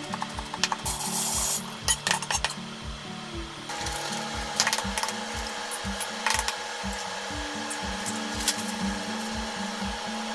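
Kitchen knife chopping and scraping minced broccoli on a mango-wood cutting board in the first couple of seconds, then a few sharp taps of an egg being cracked against a glass bowl, over background music with a steady beat.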